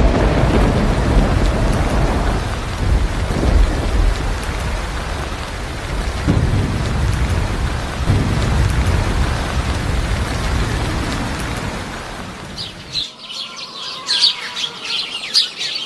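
Rain with rolling low thunder that swells several times. About thirteen seconds in the rumble cuts off suddenly and birds chirp.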